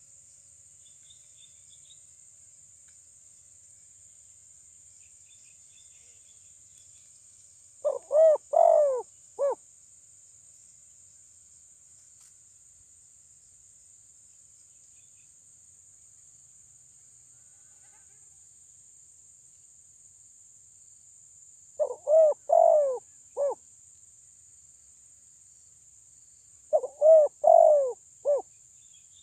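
Spotted dove cooing: three phrases, each a short first note, two longer coos and a clipped last note, the second and third phrases coming about 14 and 5 seconds after the first ones. It is a decoy bird's loud call, meant to provoke rival doves.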